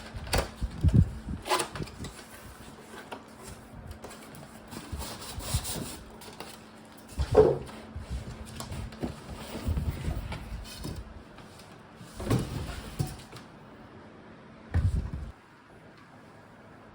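Scattered knocks, thuds and rustling of objects being handled, the loudest thud about halfway through, over a low steady hum that cuts off suddenly near the end.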